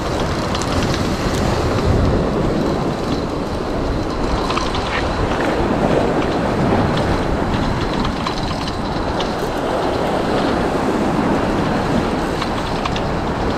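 Steady rush of surf and wind on the microphone, with faint irregular clicking from a spinning reel being cranked as a hooked fish is reeled in.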